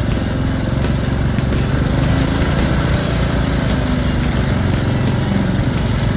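Riding lawn mower's small engine running steadily while the mower drives along a trail.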